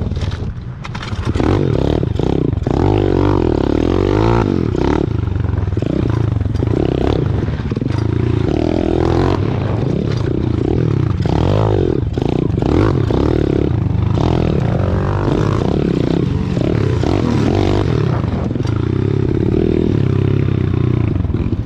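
Small single-cylinder pit bike engine being ridden hard around a dirt track, its pitch rising and falling over and over as the throttle is worked. A short dip about a second in, with rough scraping and rattling noise underneath.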